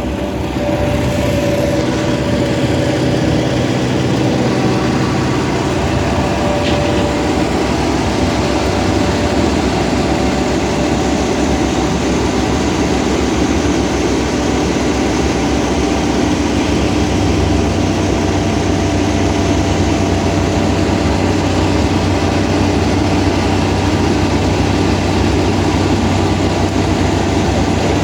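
City bus engine and drivetrain running while the bus is under way, heard from on board, with several steady whining tones over the engine drone, an engine sound out of the ordinary for the bus. A deeper hum grows louder about two-thirds of the way through.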